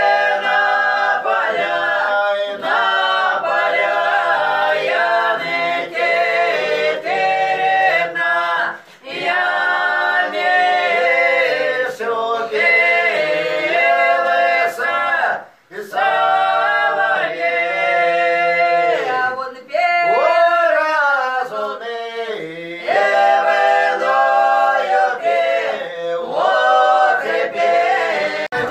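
Semeiskie (Old Believer) folk singers singing unaccompanied in several voices, a drawn-out song in long held phrases with short breaks for breath.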